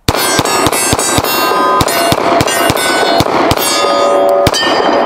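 Glock 23 Gen 5 .40 S&W pistol fired in a rapid string of shots, with steel targets clanging and ringing after the hits. The shots come quickly for the first three and a half seconds, then one last shot about four and a half seconds in, and the steel keeps ringing after it.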